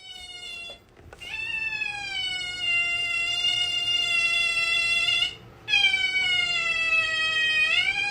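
Cat yowling in long drawn-out calls: a short one, then two long held calls of about four seconds each, the second rising in pitch near the end.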